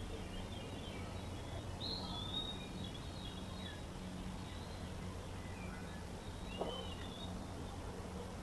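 Faint, scattered bird chirps and short whistled glides over a steady low background hum of woodland night ambience, with one brief louder call or sound about six and a half seconds in.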